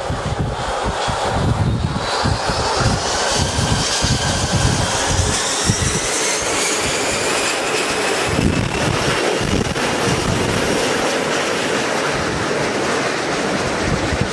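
Jet aircraft engines running with a whine that climbs slowly and steadily in pitch over a loud rushing noise, with an uneven gusty rumble underneath in the first half.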